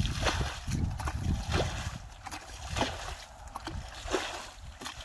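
Muddy water sloshing and splashing in a quick, irregular series as a plastic bucket is scooped through a shallow pool and emptied, bailing the pool out.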